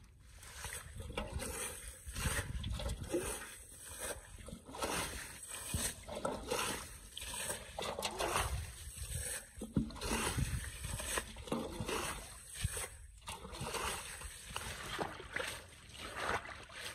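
Muddy canal water being scooped up with a round basin and flung out by hand, bailing the channel down. The splashes come unevenly, one or two a second.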